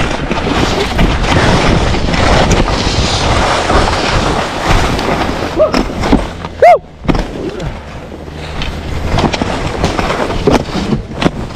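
Skis scraping and hissing over packed snow while skiing through trees, with wind rushing over the microphone. About two-thirds of the way through comes one short, loud squeak that rises and falls in pitch.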